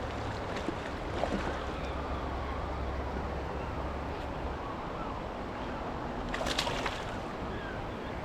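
Steady rush of river water. A brief, sharper noise breaks in about six and a half seconds in.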